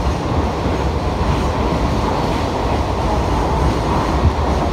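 Hanshin Railway electric train running, a steady low rumble of wheels on the rails heard from inside the car.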